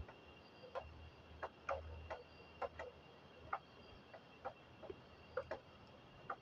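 Faint, unevenly spaced small clicks and ticks, about one or two a second, from florist's tape being pulled and wrapped tight around the end of a hair band, over a faint steady high tone.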